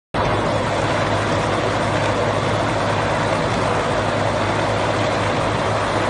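Backhoe-mounted hydraulic chain saw (QST3000D) running its chain against a stone block, over the Cat 432F2 backhoe's diesel engine with a steady low hum. The dense, even noise starts abruptly at the very beginning.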